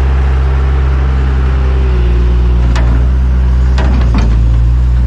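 Large diesel engine of heavy equipment running steadily, with a few sharp knocks or clicks about halfway through and near the end.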